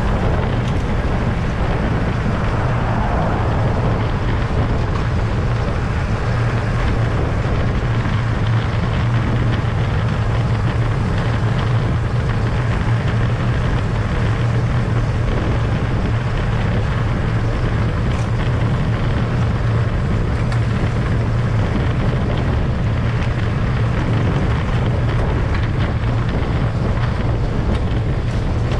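Steady wind noise buffeting the microphone of a camera carried on a moving bicycle, a constant low rumble with no breaks.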